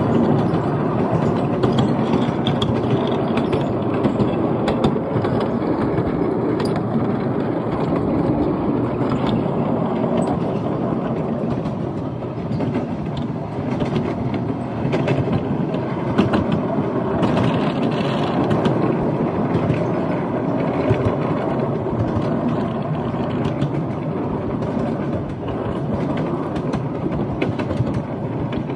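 Miniature railway ride-on carriages running along the track: a steady rumble of wheels on rail with many irregular clicks.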